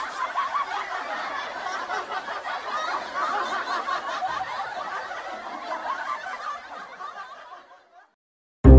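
Laughter from many people at once, dense and continuous, fading away in the last second or so. Music with plucked strings starts right at the end.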